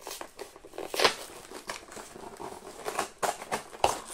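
Packaging being unwrapped by hand: irregular crinkling and rustling of wrapping, with a few sharper crackles, loudest about a second in and again near the end.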